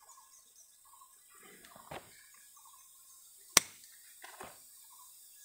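One sharp click a little past halfway, with soft rustles shortly before and after it, over faint short chirps in the background.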